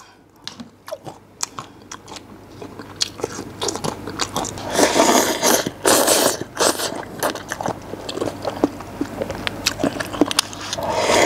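Close-miked eating: chewing and crunching, with slurping and chopsticks scraping as he shovels instant bean-curd soup with bread from a paper cup. It is loudest about four to six seconds in and again near the end.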